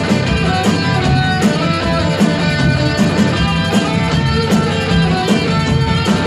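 Live rock band playing: electric guitar strumming over drums, with held notes and a sharp drum or cymbal hit about every three-quarters of a second.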